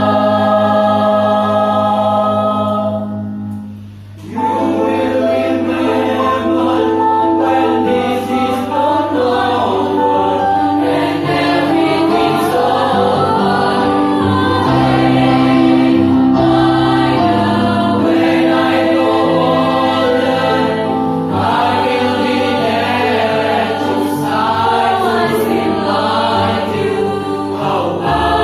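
High school choir singing in several parts. It holds a chord, breaks off briefly about three seconds in, then comes back in with moving voices and sustained chords.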